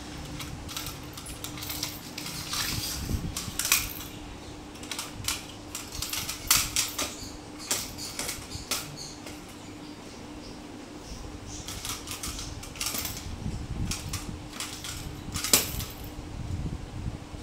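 Small plastic cat toy with a ball inside clattering and rattling on a hard marble floor as a kitten bats it around, in irregular clicks and knocks.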